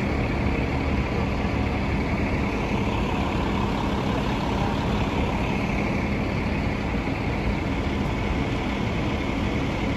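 Steady engine rumble with a constant low hum.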